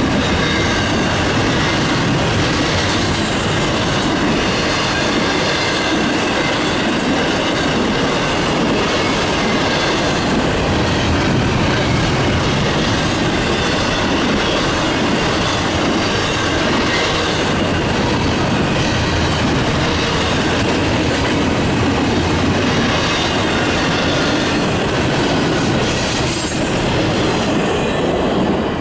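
Intermodal freight train's double-stack container cars and trailer flats rolling past, with steady wheel-on-rail noise and a faint high squealing tone from the wheels. Near the end the last car goes by and the noise drops off.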